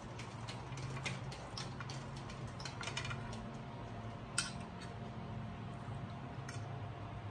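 A metal fork clicking and scraping against a china plate while picking up food, in irregular light clinks with one sharper clink about four seconds in. A steady low hum runs underneath.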